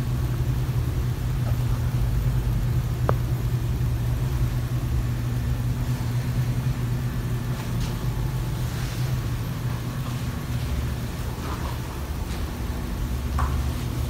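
A steady low machine hum, with a single faint tick about three seconds in.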